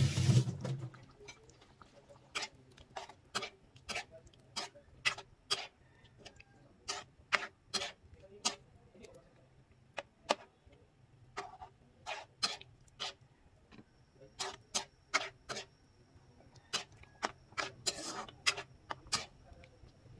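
A spoon knocking against the metal wok as a sauce with vegetables is stirred: sharp taps about two a second, in runs with short pauses. A brief loud rush of noise fills the first second.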